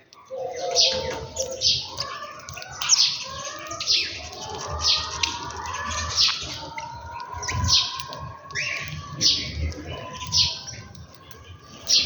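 Small birds chirping: repeated sharp, high chirps about once or twice a second, over a busy tangle of lower, gliding bird calls.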